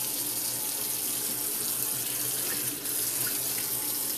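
Kitchen tap running a steady stream of water into a sink, splashing around the drain, with a brief dip in the flow sound about three seconds in.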